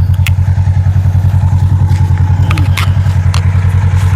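Air 2 drone's motors and propellers, heard up close through a lapel mic strapped to the drone: a loud, steady low hum that pulses rapidly and evenly, with a few sharp clicks.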